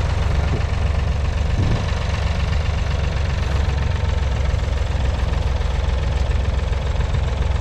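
1969 David Brown 780's 2.7-litre three-cylinder diesel engine running at a steady speed.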